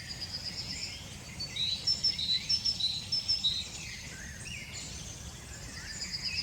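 Small birds singing and chirping: a fast high trill at the start and again near the end, with a run of short sharp notes in between, over a steady low rumble.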